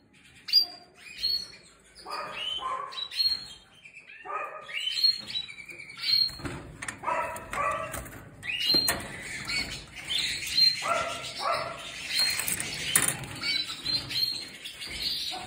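Spanish Timbrado canaries chirping and calling in short, repeated notes, with a few sharp clicks in the second half.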